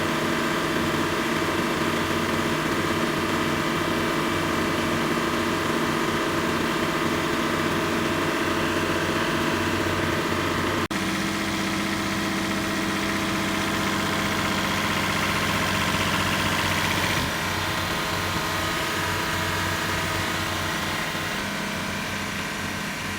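Newly rebuilt Perkins 1103A three-cylinder diesel engine of a 43 kVA generator set running steadily with no load on its first running test. There is a momentary break about halfway through, after which the engine note sits slightly differently.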